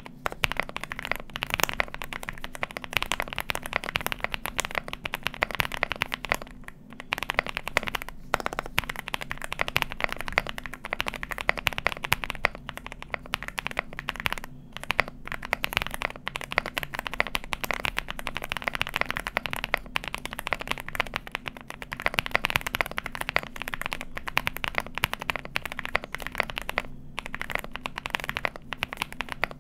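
Fast continuous typing on a Wuque Studio Promise87 custom mechanical keyboard, built with stock-lubed WS Aurora Clear switches, lubed WS Aurora stabilizers, a PC plate, PORON foam and WS GR PBT keycaps: a dense stream of keystroke clacks with a bubbly sound, pausing briefly a few times.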